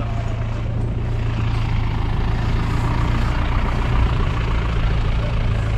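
An engine idling, a steady low hum that holds unchanged throughout.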